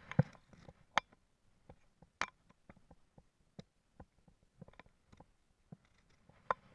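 Fly line being stripped in by hand: scattered soft clicks and taps at an irregular pace, with a brief rustle of line at the start.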